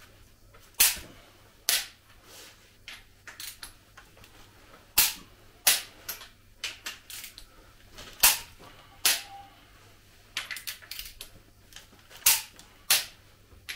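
Click-type torque wrench clicking as the cylinder head bolts of a Volvo D67C diesel engine are tightened to torque in sequence: a dozen or so sharp clicks at uneven intervals, with fainter clicks between them.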